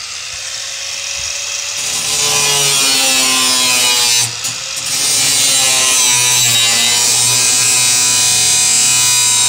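Corded angle grinder switched on and spinning up with a steady whine, then its disc grinding into the steel cage frame of an IBC tote from about two seconds in. There is a brief break a little past four seconds.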